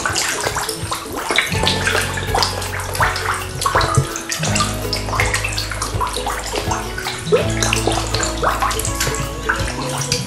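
Water splashing and slapping as a crowd of catfish thrash at the pond surface while feeding, in many short irregular splashes. Background music with held low notes that change every few seconds plays under it.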